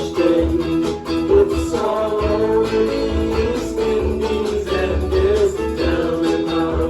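A band playing an 80s-style song live: an instrumental passage with guitar over a pulsing bass line and a steady beat.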